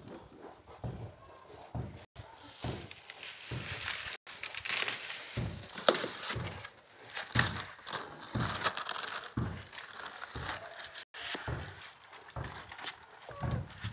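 Thin plastic sheeting crinkling and crackling unevenly as it shifts and is pressed, with soft low bumps mixed in.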